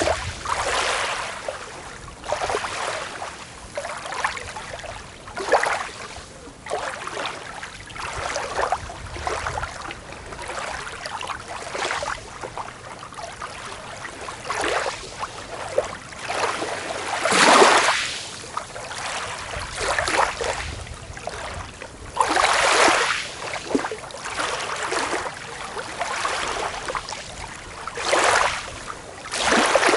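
Small waves washing onto a beach, in irregular splashes and swishes of water. A few larger waves break more loudly, the biggest just past halfway through.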